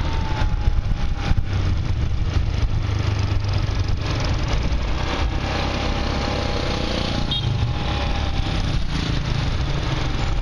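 Motorcycle engine running steadily under way, heard from the rider's seat, mixed with a constant low rumble of wind and road noise.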